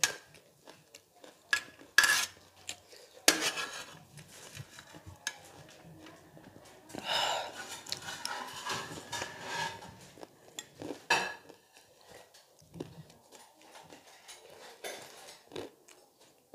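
Stainless steel spoon clinking and scraping against a tray and a glass bowl, with a few sharp clinks, and a few seconds of crunchy eating around the middle.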